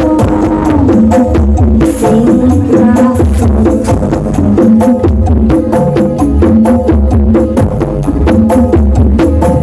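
Loud music played through a big parade sound system, with a heavy bass beat under a melodic line and steady percussion.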